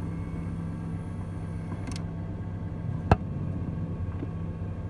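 Steady hum of a Jeep Patriot running, heard close beside the HVAC actuator under the dashboard, with one sharp click about three seconds in.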